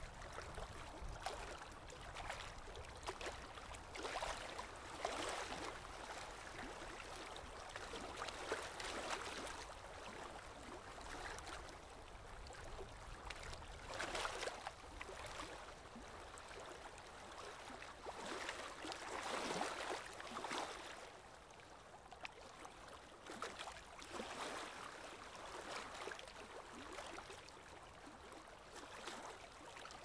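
Mountain lake water lapping, a soft splashing wash that swells and eases every few seconds.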